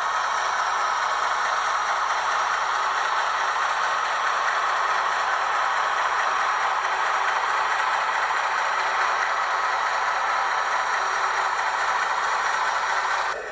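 HO scale 44 class model's LokSound DCC decoder playing a steady, rattly diesel engine sound through the model's small speaker. It cuts off sharply near the end, leaving a quieter idle.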